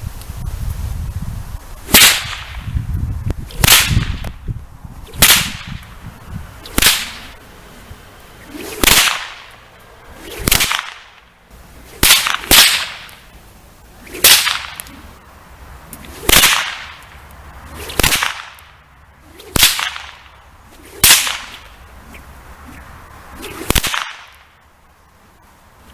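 A whip swung and cracked again and again, each crack a sharp snap with a short swish leading into it, about every one and a half to two seconds.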